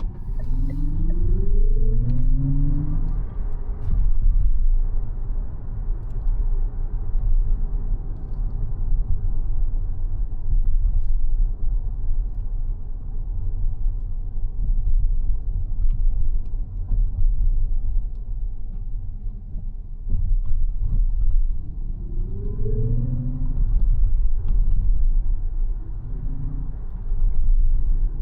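Mazda 6e electric sedan driving, with a steady low road and tyre rumble. Twice, near the start and again about 22 seconds in, a set of tones rises in pitch for a second or two as the car picks up speed.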